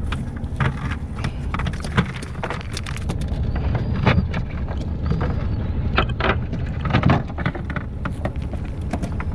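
A wet cast net being shaken out over a fiberglass boat deck: irregular taps and clicks of the net's lead line and dropping shrimp, over a steady low rumble.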